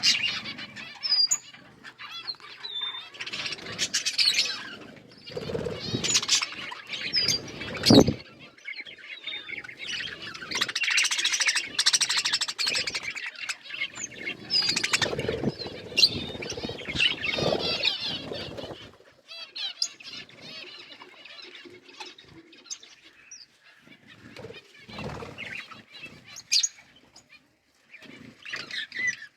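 Budgerigars chirping and chattering, with many short clicks among the calls and one loud knock about eight seconds in. The chatter thins out and gets quieter about two thirds of the way through.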